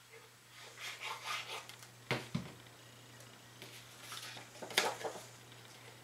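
Cardstock card pieces being handled and pressed together by hand: faint paper rustling, with two sharp clacks of light objects on the table, one about two seconds in and a louder one near five seconds. A low steady hum sits under it.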